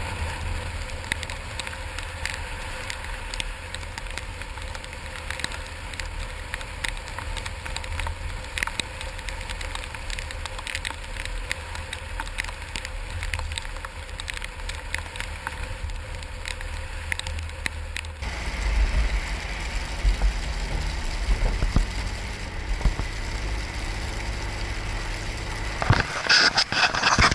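Steady low vehicle rumble overlaid with frequent small crackles and ticks. About two-thirds of the way through, the sound switches abruptly to a heavier, louder low rumble, and a loud burst of noise comes near the end.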